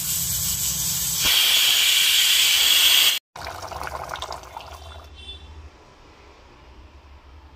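Prestige Deluxe pressure cooker whistling: steam hissing out past the weight once pressure has built up, turning into a louder, shrill whistle about a second in. It cuts off suddenly after about three seconds.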